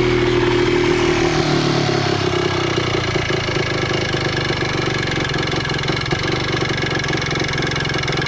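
Yamaha Blaster 200's two-stroke single-cylinder engine running at a high idle, its revs sinking slowly over the first two or three seconds and then settling into an uneven, pulsing idle. The owner wonders whether the throttle is sticking open.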